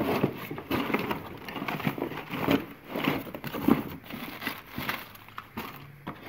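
Plastic bags and cardboard packaging crinkling and rustling as hands rummage through a box, in irregular bursts with small knocks of items being moved.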